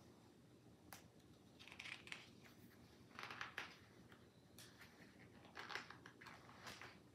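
Faint paper rustling, several short rustles from the pages of a picture book as a hand grips and starts to turn a page.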